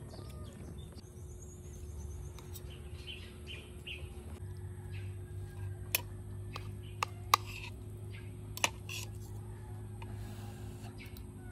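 Metal spoon and fork clinking against a ceramic plate of rice, with four sharp clinks in the second half, and birds chirping.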